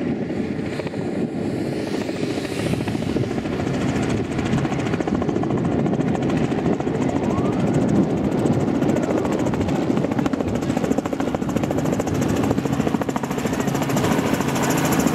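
Robinson R44 Raven II helicopter flying in on approach. Its two-bladed main rotor beats in a fast, steady chop over the drone of its six-cylinder piston engine, growing louder as it comes closer.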